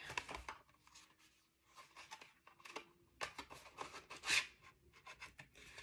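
Jewelry items and their packaging being handled by hand: scattered light clicks and rustles, with a louder crinkle about four seconds in.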